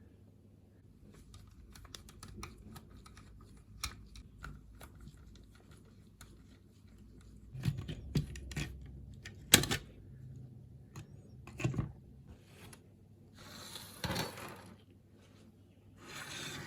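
Irregular light clicks, taps and sharper knocks of small parts and tools being handled, with two short hissing bursts near the end.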